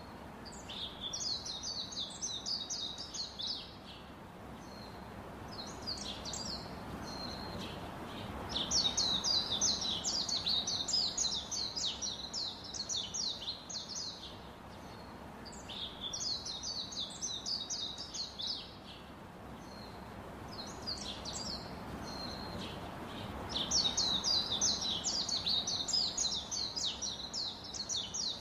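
Ducklings peeping: rapid runs of high, falling peeps that come in several bouts of a few seconds each, over a steady low background noise.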